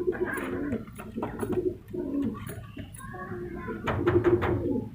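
Sherazi pigeons cooing in a loft: several overlapping low coos one after another, with a few short clicks, busiest about four seconds in.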